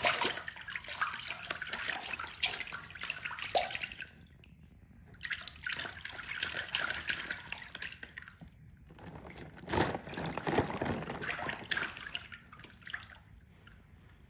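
Water splashing and dripping in a shallow container as toys are moved through it, in three bursts with short pauses between.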